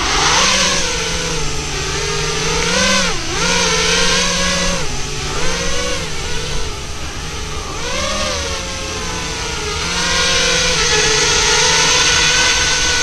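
Racing quadcopter's four brushless motors (ZMX Fusion 2205 2300kv) and propellers in flight, a steady buzzing whine over prop hiss. Its pitch dips and rises several times with throttle, then holds steadier and a little louder over the last few seconds.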